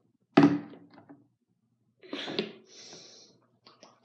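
A plastic Fiji water bottle being drunk from and handled: a sudden loud thunk about a third of a second in, then a few softer knocks and rustles around two to three seconds in.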